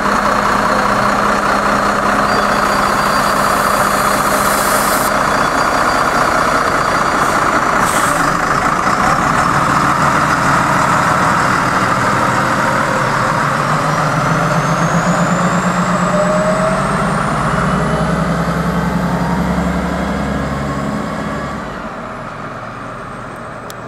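Karosa B961 articulated city bus with its diesel engine running behind the stop. There are two short hisses of air about four and eight seconds in, then the engine works harder as the bus pulls away. The sound fades as the bus drives off near the end.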